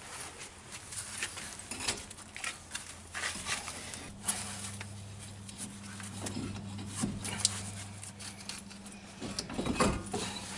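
Irregular metallic scraping and clicks of brake parts being worked by hand at a car's front brake, as the pads are pried and slid out of the caliper bracket. A steady low hum comes in about four seconds in.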